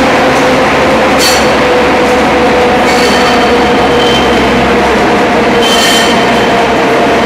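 Rail draisine (track service vehicle) running slowly along newly laid metro track: a loud, steady rolling rumble with a constant hum, and two brief high wheel squeals, about a second in and near the end.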